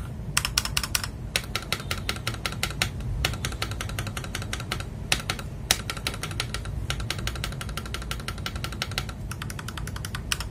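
Fast typing on a Gamakay LK67 mechanical keyboard fitted with Akko switches: runs of quick keystrokes, broken by short pauses about a second in, near three seconds, at five seconds and near seven seconds.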